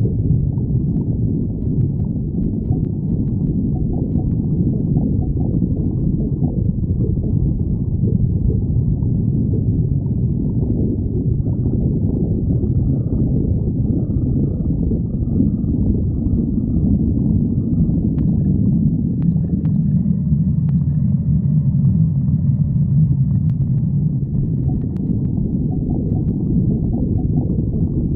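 A person's stomach growling and gurgling from hunger: a continuous low rumble, with faint higher whining tones partway through.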